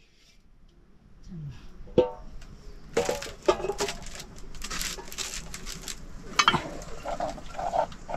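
Aluminium cookware clinking and knocking: a metal bowl and a ladle striking the pot, with scraping as the pot on the wood fire is stirred. There are a few sharp ringing knocks, the first about two seconds in.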